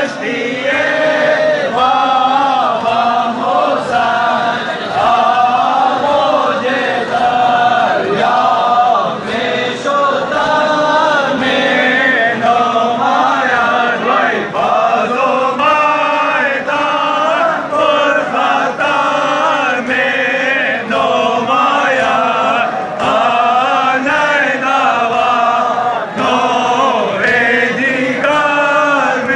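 Large crowd of men chanting a Shia mourning chant in unison, with steady rhythmic beats through it, typical of matam (chest-beating) keeping time with the chant.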